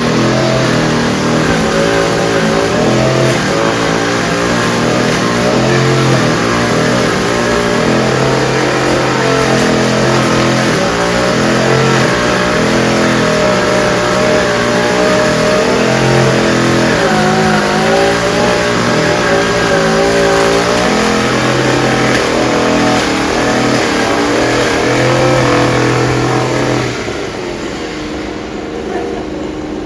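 Engine of a motorised disinfection sprayer running loudly, its pitch wavering up and down. About 27 seconds in, its lower tones fall away and it becomes quieter.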